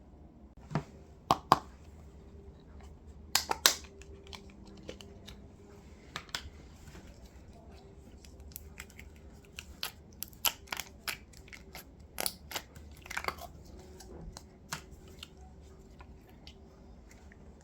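Slime being squished and worked by hand, with irregular sharp wet pops and crackles that come in scattered clusters.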